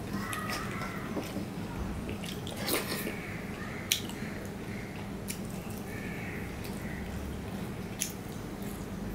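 Fingers kneading rice and dal on a stainless steel plate: wet squishing with scattered sharp clicks of fingers and food against the metal, the loudest about four seconds in. Near the end a mouthful is taken, with a click and eating sounds.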